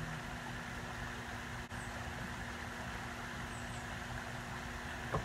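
Steady outdoor background rumble with a faint, even hum running under it and a few faint high chirps.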